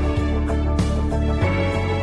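Background music: sustained instrumental notes over a pulsing bass.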